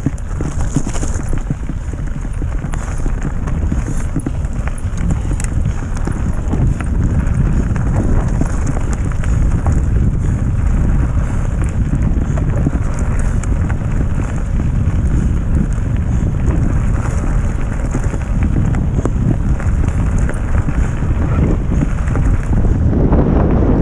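Mountain bike riding fast over a gravel road: a steady rumble of tyres on gravel, with the bike and its handlebar map board rattling over the stones and wind buffeting the microphone.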